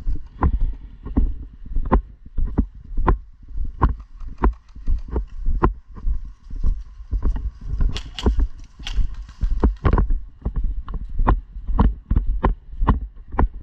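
Steady footsteps close to the microphone, about two to three heavy thumps a second, at a walking pace.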